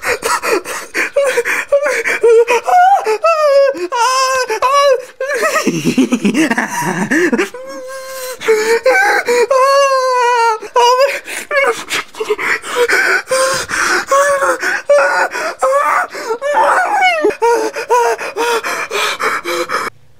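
A man wailing and sobbing in loud, exaggerated crying: long, high, wavering cries broken by gasping breaths.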